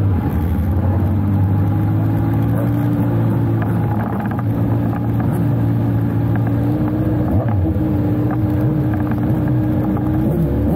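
Speedway sidecar engine running at a steady, unchanging pitch, heard close up.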